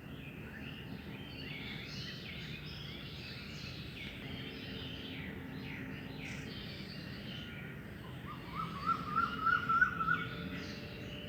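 Several birds chirping and calling together over a steady low background hum. About two-thirds of the way through, one bird gives a louder, quick run of short rising notes lasting about two seconds.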